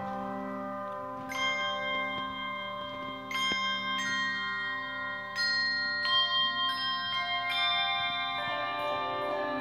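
Handbell choir ringing a slow tune in chords: a new group of bells is struck about every second, and each clear ringing tone sustains and overlaps with the next.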